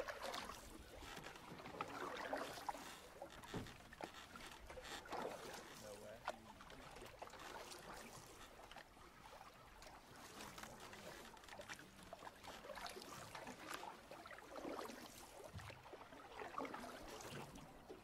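Canoe paddle dipping and pulling through river water in soft, irregular swishes every few seconds, with water lapping along the hull.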